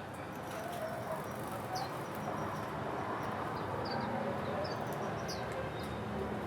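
Small birds chirping in short, scattered high calls, several over a few seconds, over a steady background rumble.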